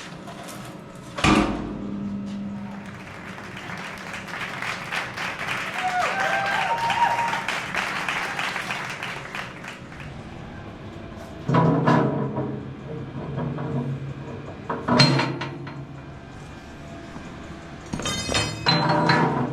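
Steel pieces knocking and clanking, each knock ringing on a little: one sharp clank about a second in, more clanks near the middle, and a quick rattle of metal near the end.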